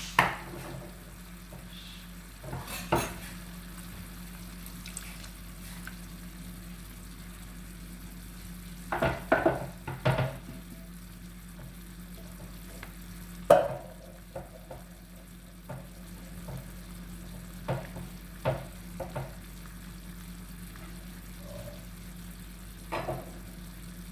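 Chicken frying in oil with a steady sizzle, while a cooking utensil stirs and knocks against the pan now and then in sharp clatters, with a cluster of them about nine seconds in.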